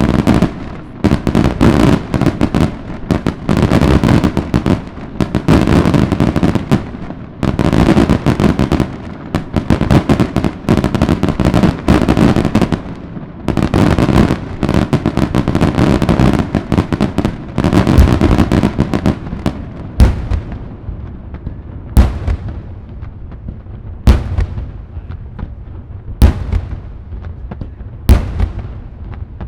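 Daylight fireworks display: a dense barrage of rapid, overlapping firework explosions. About two-thirds of the way through it gives way to single loud bangs about every two seconds.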